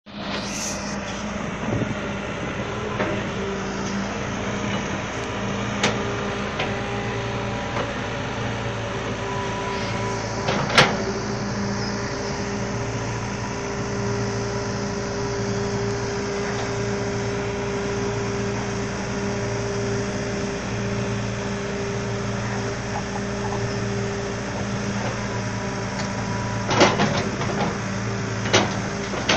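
Hydraulic excavator's diesel engine running at a steady speed, with a few sharp knocks now and then, the loudest about eleven seconds in and two more near the end.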